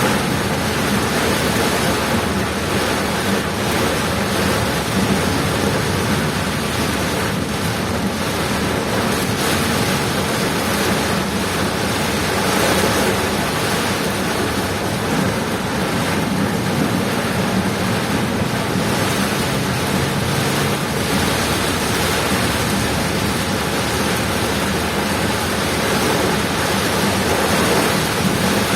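Heavy rain and strong wind beating on a moving vehicle: a steady, dense rush of noise.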